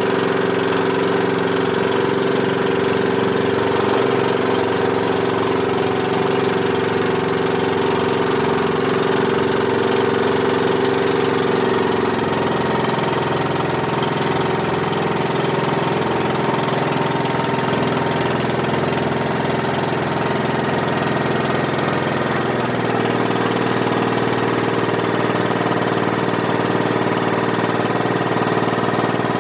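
Small passenger boat's engine running steadily under way, its tone shifting slightly about twelve seconds in and again about two-thirds of the way through.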